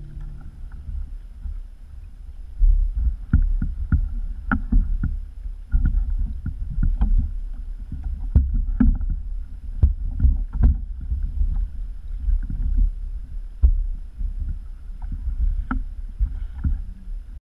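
Ocean chop slapping against a fishing kayak's hull, with a heavy rumble of wind on the microphone and scattered sharp knocks. The sound cuts off suddenly near the end.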